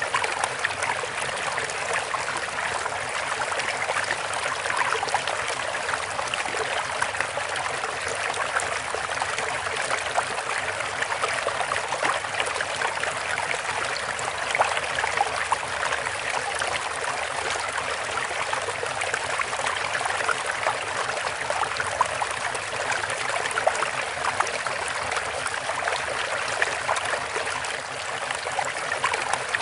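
Steady running water of a babbling stream, a continuous trickling and splashing hiss that holds an even level throughout.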